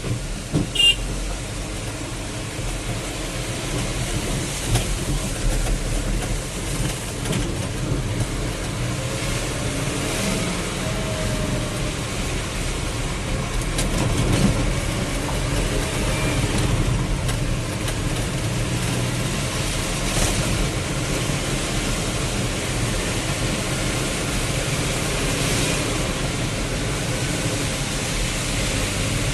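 A vehicle driving in heavy rain: a steady wash of rain and road noise over the engine's low running, with a few short knocks about a second in.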